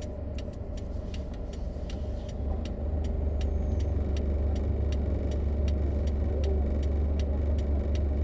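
Car running on the road, heard from inside the cabin: a steady low rumble that gets louder about two and a half seconds in, with a regular fast ticking, about two to three clicks a second.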